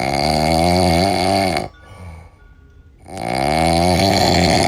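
Calf snoring in its sleep: two long snores, each about a second and a half, with a quieter gap between them.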